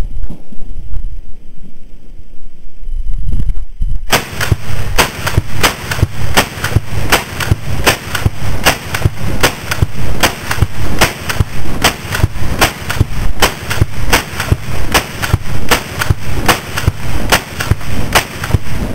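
AR-15 rifle with a 16-inch barrel fired semi-automatically in a fast, steady string of about two shots a second, starting about four seconds in after a low rumble.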